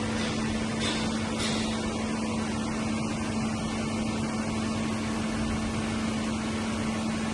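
OM Neo 20 CNC vertical lathe running with a steady hum, with two short hisses about a second in.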